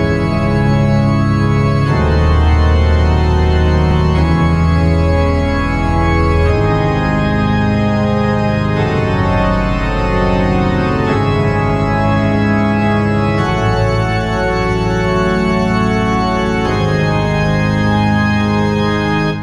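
Background music of sustained organ chords, each held without decay and changing to the next chord about every two seconds.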